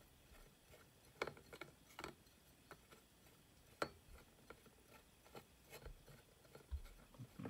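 Faint, scattered clicks and light taps at irregular intervals as a small glass culture vessel is handled and turned on its plastic light base, over near silence.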